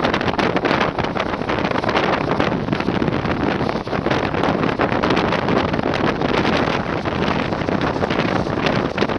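Wind buffeting the microphone held out of a passenger train coach running at about 110 km/h, over the steady running noise of the wheels on the rails, with frequent short clicks and knocks.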